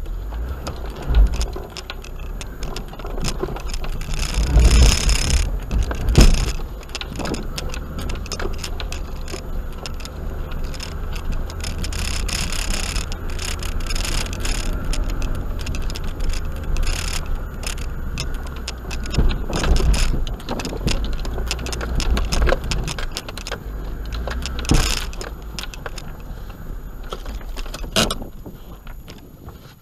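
Suzuki Grand Vitara 4WD driving slowly along a rough, rutted dirt track, heard from inside the cabin. A steady low engine rumble runs under frequent knocks and rattles as the vehicle jolts over ruts and stones, and the sound fades out near the end.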